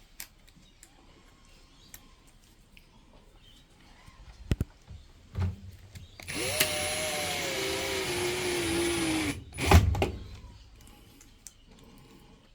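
Power drill-driver running for about three seconds, its motor pitch dropping as it drives a screw home, followed by a sharp knock.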